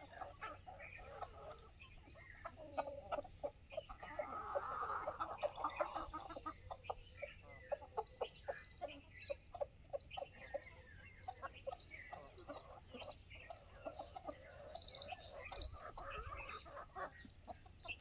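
Flock of free-range desi chickens clucking, with many short calls overlapping and busiest in the middle stretch.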